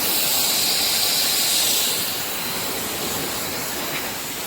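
Slopehill ionic hair dryer blowing cool air on its second speed setting: a steady rushing hiss of air and fan, a little louder in the first two seconds before easing slightly.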